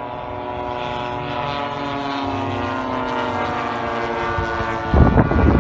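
Engine drone of large-scale radio-controlled warbird model airplanes flying overhead, a steady pitched buzz that drops slightly in pitch midway as a plane passes. Near the end, wind rumbles loudly on the microphone over it.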